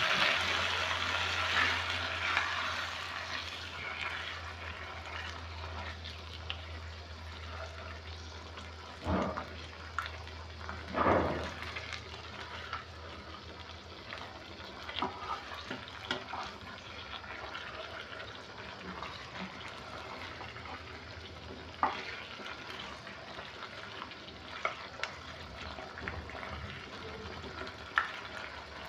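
Matoke and beef sauce sizzling in a non-stick pot. The sizzle dies down over the first few seconds to a quieter simmer. A spatula stirs and now and then scrapes and knocks against the pot.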